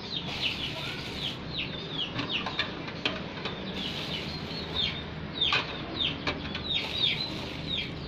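Chicks peeping: repeated short, high cheeps that slide downward in pitch, a few each second.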